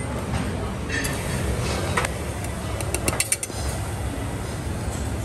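Steady low rumble of a busy buffet kitchen, with a few light clicks and clinks, the clearest cluster about three seconds in.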